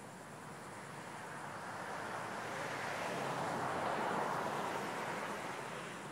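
A vehicle passing by: tyre and road noise swells to a peak about four seconds in, then fades away.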